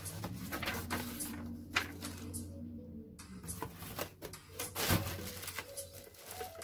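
Cardboard box and plastic packaging being handled and rustled, with scattered clicks and a louder knock about five seconds in, over faint background music.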